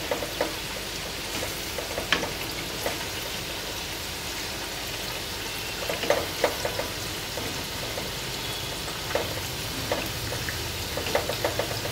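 Urad dal vadas deep-frying in hot oil in a kadhai: a steady sizzle with a few scattered light clicks. They are partway through frying toward a light pink colour.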